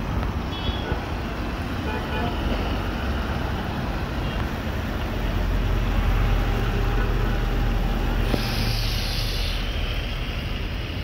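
Road traffic rumbling, swelling about five seconds in as a vehicle passes, mixed with liver frying and sizzling on a large flat iron tawa. A stronger hiss lasting about a second and a half comes near the end.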